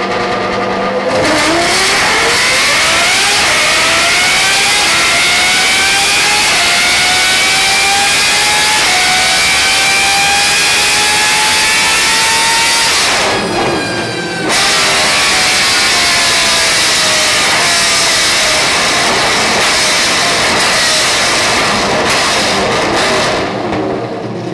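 Naturally aspirated Judd V10 racing engine in a Toyota Supra race car, pulling under load on a chassis dyno. Its pitch climbs steadily for about twelve seconds, drops off briefly, then runs hard again until near the end.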